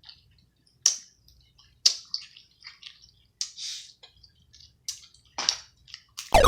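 Wet eating sounds: sharp clicks and squishes of seafood shells being cracked and pulled apart, with saucy smacks, scattered every second or so. Just before the end a loud sound sliding down in pitch begins.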